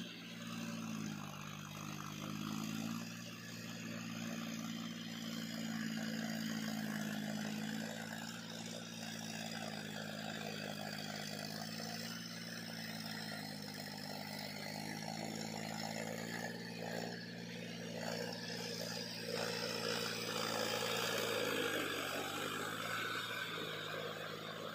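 John Deere 5050D tractor's three-cylinder diesel engine running steadily under load while pulling a rotavator through flooded mud, its pitch rising about a second in and dipping briefly near the end. Under it runs a rushing churn of mud and water from the rotavator.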